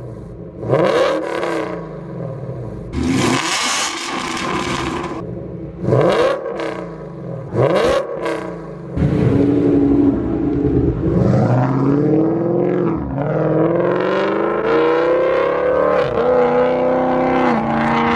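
A 2022 Ford Mustang GT's 5.0 Coyote V8 through Kooks long-tube headers and a Corsa Extreme X-pipe exhaust with Corsa resonators. It is revved four times while the car stands, the second rev held longer. About nine seconds in, the car pulls away hard, its pitch climbing and dropping back at each upshift.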